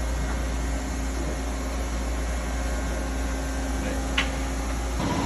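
Steady hum and drone of a CNC lathe standing at idle, with a single sharp click about four seconds in. Near the end a louder running sound with a higher whine sets in.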